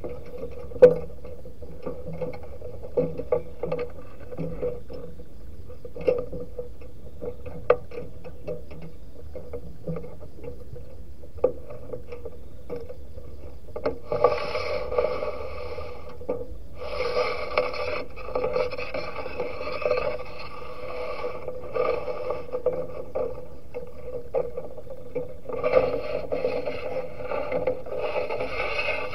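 Zebra dove (perkutut) cooing in loud, rhythmic bouts of rapid staccato notes. These begin about halfway through and come in several phrases with short pauses between them. Before them there are only scattered soft clicks and faint notes.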